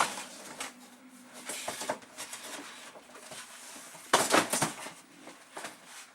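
Hard objects knocking and clattering as things are picked up, moved and put away, with scattered light knocks and a louder burst of clatter about four seconds in.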